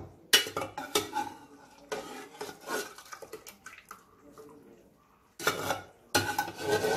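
A metal slotted ladle scrapes and clinks against the inside of a pressure cooker as boiled vegetables are scooped out, with some liquid splashing. The sounds are irregular, with a brief pause about five seconds in and louder scraping near the end.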